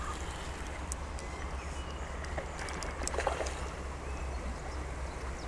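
Steady rush of fast-flowing river water at a weir, with a low rumble underneath.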